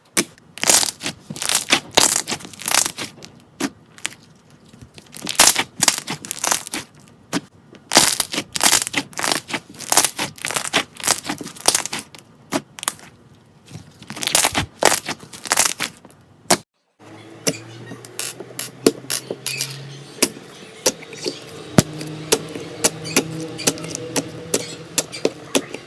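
Slime being squeezed and poked with dense, sharp crackling and popping clicks. After a short break about two-thirds of the way in, softer slime clicks continue over quiet background music.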